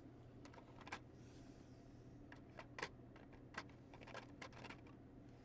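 Near silence, with faint, scattered light clicks and taps of small model-kit parts being handled, about eight in all.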